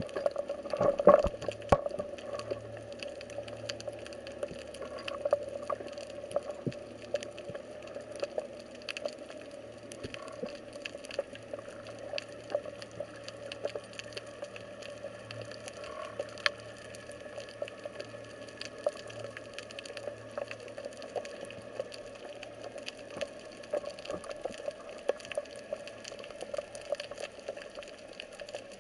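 Underwater ambience: a steady faint hum with scattered sharp clicks and crackles, the loudest cluster about a second in.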